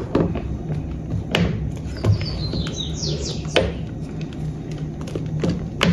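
A few light knocks, like a spoon against a pan, over a steady low hum. In the middle a bird chirps a quick run of falling notes.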